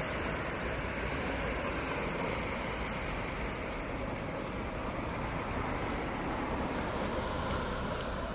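Steady street traffic noise, with a car passing close by near the end.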